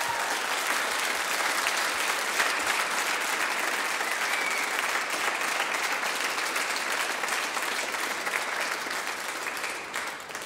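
A large group clapping in steady, sustained applause, easing off near the end.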